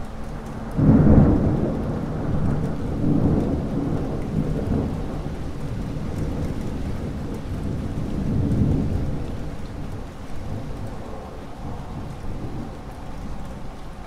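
Thunderstorm: a sudden loud thunderclap about a second in, then rolling thunder that swells twice more and fades toward the end, over steady rain.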